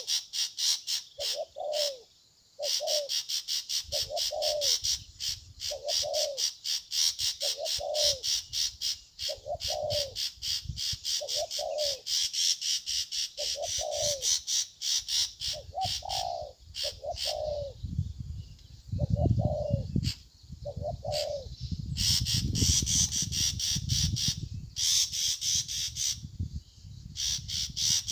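Spotted dove cooing, a short falling coo repeated about once a second, over a fast, high pulsing chirp. There is low rumbling in the second half.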